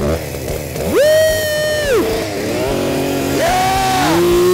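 A small engine revved twice. Each time its pitch rises quickly, holds for about a second, then drops back to a low idle.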